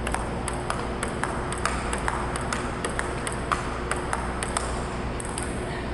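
Table tennis ball clicking against paddles and the table in a steady warm-up rally, a quick, even run of sharp clicks, about four a second. A steady low hum runs underneath.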